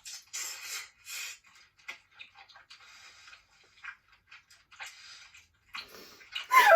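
Close-miked mukbang eating sounds from the seafood meal: a run of wet clicks, smacks and chewing noises, with a brief voice near the end.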